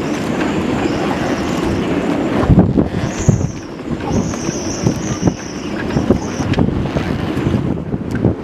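Strong gusty storm wind buffeting the microphone, with irregular knocks and a thin high whistle that comes and goes.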